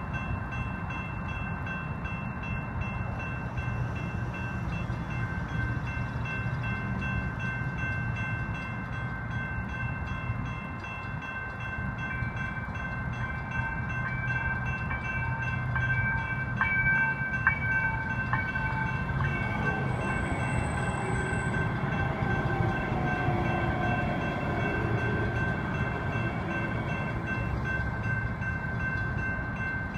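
Two General Signals Type-2 electronic crossing bells ringing steadily through the crossing activation. From about twenty seconds in, an approaching VTA light rail train adds a whine that slowly falls in pitch.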